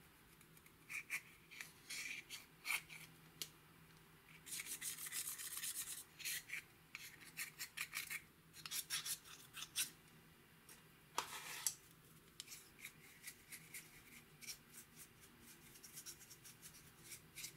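Pressed eyeshadow being scraped out of its palette pans with a thin tool: faint scratching in short, irregular strokes, with denser runs of scraping about five and nine seconds in.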